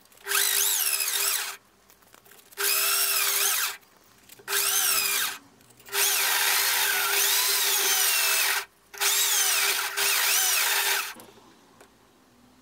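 Electric drill spinning a brass ring on a tape-wrapped dowel while sandpaper is pressed against it, in five runs of one to three seconds with short pauses between. The sandpaper gives a high squeal that slides up and down in pitch over the steady drill motor, and the drill stops about eleven seconds in.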